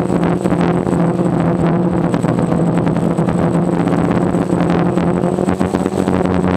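DJI Phantom quadcopter's propellers and motors running steadily in flight: a constant hum with a rushing noise of air over it.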